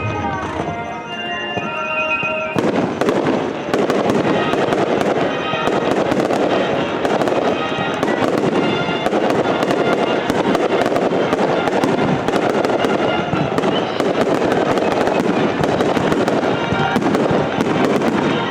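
Fireworks display: rapid, dense crackling and popping from bursting shells, thickening into a near-continuous crackle about three seconds in.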